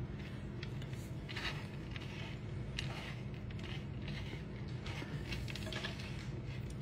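Faint soft scrapes and crackles of chopped pistachios as a mustard-coated salmon fillet is pressed and turned in them with tongs and fingers on a wooden cutting board, a few light ticks scattered through, over a low steady hum.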